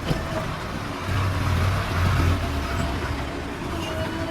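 Diesel engine of a JCB 3DX backhoe loader running steadily, swelling louder for a stretch about a second in, as it would when the engine comes under load.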